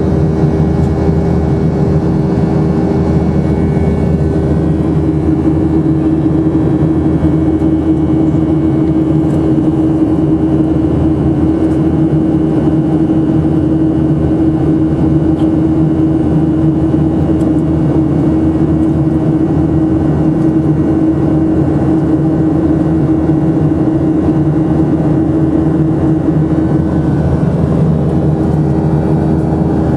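Boeing 737-800 jet engines (CFM56-7B turbofans) running in a steady, loud drone, with a low held hum that shifts slightly a few seconds in and again near the end.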